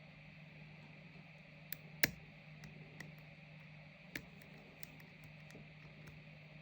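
Small, sharp clicks of a lock pick working the pin stack of a padlock core under tension, a few scattered clicks with one louder one about two seconds in, over a faint steady hum.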